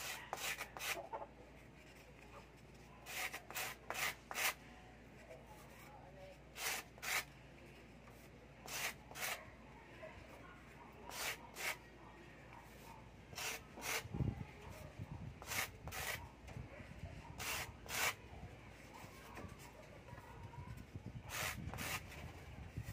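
A styrofoam disc being rubbed against a concrete floor to round off its edge: short scraping strokes, mostly in pairs, repeated every couple of seconds.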